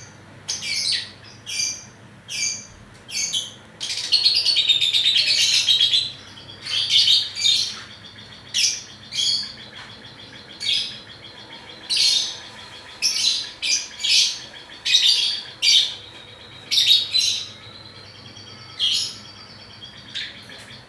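Lovebird calling: a string of short, sharp, high chirps about one a second, broken by a run of rapid chattering about four seconds in that lasts some two seconds.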